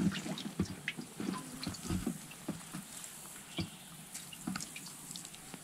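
Faint water dripping and trickling from a largemouth bass just lifted out of a boat's livewell, with scattered small clicks and knocks.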